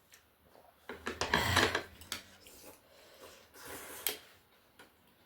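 Eating from a bowl: a spoon or fork clinks and scrapes against the dish in a cluster about a second in, with a shorter clatter near the end.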